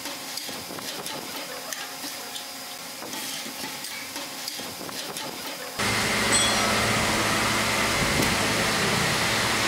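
Light clicks and knocks of steel machine parts being handled over workshop background noise. About six seconds in, a louder steady hiss with a faint hum takes over.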